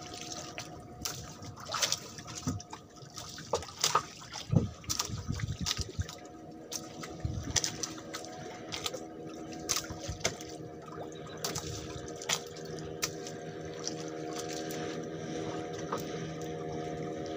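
Sea water lapping and slapping against the hull of a small outrigger boat, with irregular sharp clicks and knocks. From about five seconds in, a steady droning hum joins and holds.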